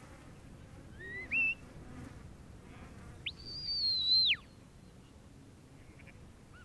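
Sheepdog handler's whistle commands to a working border collie: a short rising whistle about a second in, then a long high whistle held for about a second that drops sharply at its end.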